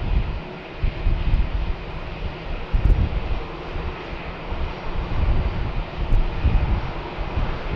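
Boeing 747-400 jet engines at takeoff thrust: a loud, continuous jet noise with a heavy low rumble that swells and fades unevenly.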